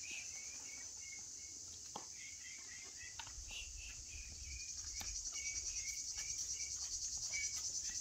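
Steady high-pitched insect chirring that pulses in a fast rhythm and grows louder from about halfway, with a string of short repeated chirps over it and a soft low rumble in the second half.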